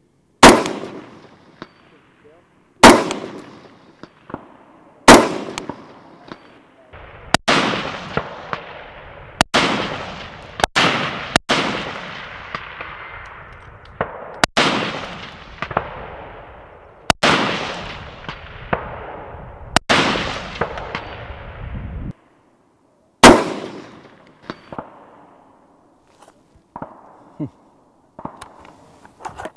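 Faxon ARAK 21 rifle with a 5.56 barrel firing .223 Remington 69-grain match rounds, one aimed shot at a time, about eleven shots spaced two to three seconds apart. Each report rolls off in a long echo. Faint clangs of the steel flipper target being hit downrange follow about a second after several of the shots.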